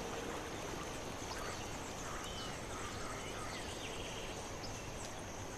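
Steady forest ambience, an even hiss of the natural surroundings, with a few faint, short bird chirps scattered through it.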